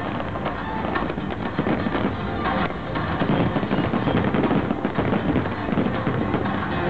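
Aerial fireworks going off in a dense rapid barrage, many shells bursting and crackling in quick succession with no pause.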